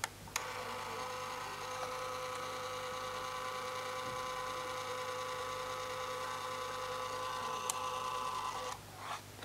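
Kaiser Baas PhotoScanner, a sheet-fed photo scanner, drawing a photo holder through its feed slot: a click as it starts, then its feed motor running with a steady, even hum and whine that stops shortly before the end.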